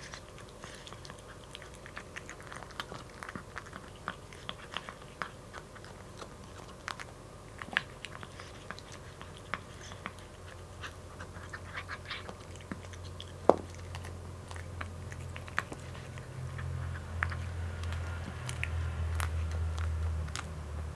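A kitten crunching dry kibble from a plastic bowl: many small crisp crunches, with one sharper click about halfway through. A low hum builds up over the second half and is loudest near the end.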